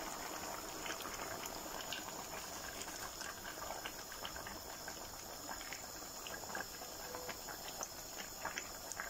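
Faint steady crackling hiss with many small scattered ticks from a pot of meat as palm oil is poured over it.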